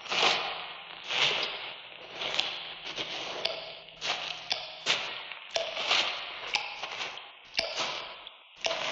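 Irregular sharp knocks or strikes, about two a second, each fading off with a rough, noisy tail, on a sound-effects record.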